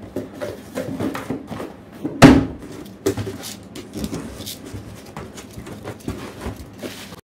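Cardboard boxes being handled: rustling and scraping of cardboard, a loud thump about two seconds in, then the packing tape on a shipping box being slit open and its flaps pulled back.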